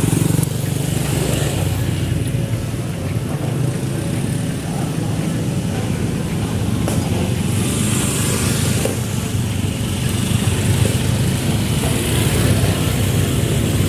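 Small motorcycle engine running steadily at low speed, with a brief hiss about eight seconds in.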